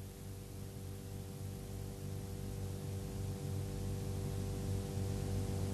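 Steady electrical mains hum with a low hiss, slowly growing louder.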